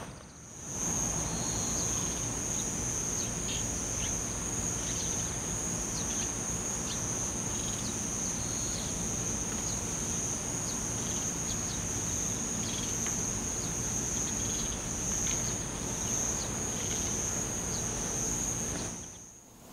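A steady high-pitched chirring of insects in a summer field, with short high chirps scattered over it. The sound fades in at the start and fades out near the end.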